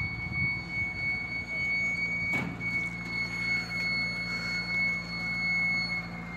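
Machinery of a truck-mounted mobile telecom tower running as the mast is raised: a steady high-pitched whine over a low, even hum, with a single sharp knock about two and a half seconds in.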